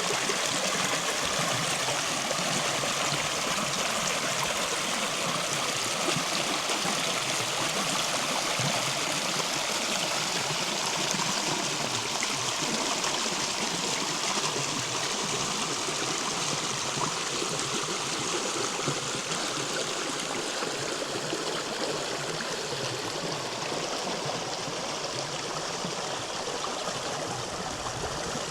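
A shallow river running over rocks, a steady rushing and trickling of water that eases slightly in the last few seconds.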